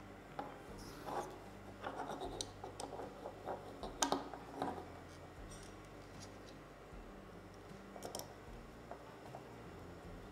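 Hands handling and fitting together small parts of a device on a tabletop: scattered small clicks, taps and light scrapes, the loudest a sharp click about four seconds in, thinning out in the second half.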